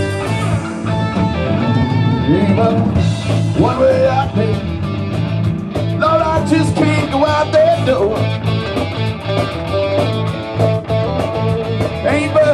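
Live rock band playing: electric guitar over bass and a steady drum beat, with bending lead lines.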